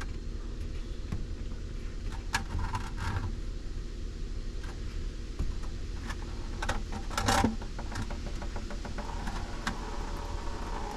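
A few light metallic clinks and scrapes from hand tools working the radiator's drain petcock loose, over a steady low hum.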